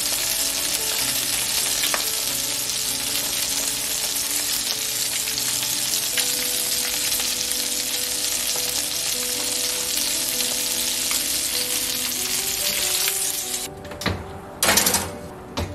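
Barracuda fillets sizzling steadily skin-side down in hot olive oil in a frying pan, with background music. The sizzling cuts off near the end, followed by a couple of short clatters.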